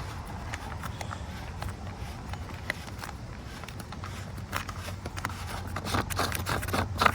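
Light clicks and scrapes of a plastic coolant reservoir and its cap being handled and looked over, with a sharper click near the end, over a steady low rumble.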